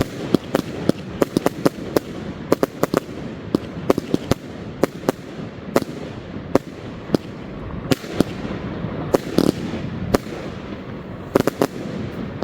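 Fireworks display going off: a rapid, irregular series of sharp bangs and crackles, often several a second.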